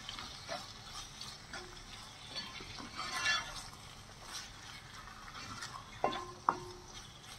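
Wooden spatula stirring and scraping raw chicken pieces through onion masala in a heavy pot, with a faint sizzle, mixing in the salt. Two sharp knocks near the end.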